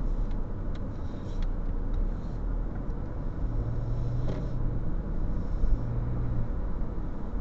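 Car driving slowly, its engine and tyre rumble heard from inside the cabin through a dashcam, with a few light ticks in the first second or two and a low hum that swells twice in the middle.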